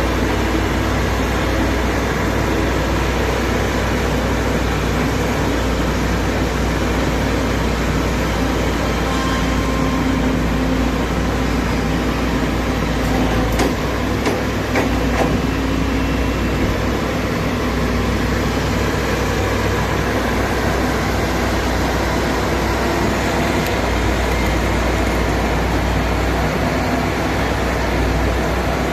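Excavator's diesel engine running steadily, with small changes in its sound near the middle.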